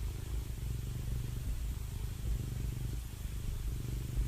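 Domestic cat purring steadily, the purr swelling and easing about once a second with its breathing.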